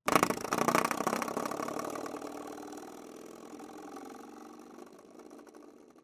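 Comedy sound effect: a rapid buzzing rattle that starts suddenly, is loudest in the first second, and fades out over about six seconds.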